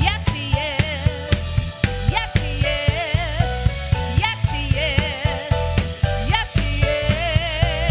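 Gospel worship song played by a live band: a drum kit keeping a steady beat with sharp snare hits, with keyboard and percussion beneath a lead vocal sung with strong vibrato.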